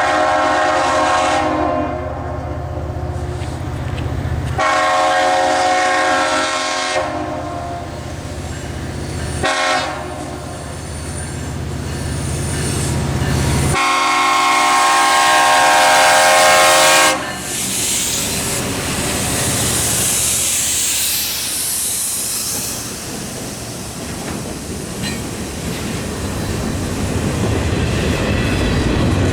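Horn of a freight train led by rebuilt EMD diesel locomotives sounding the grade-crossing signal, long, long, short, long, over the low drone of the diesel engines. The train's wheels then clatter along the rails, louder near the end.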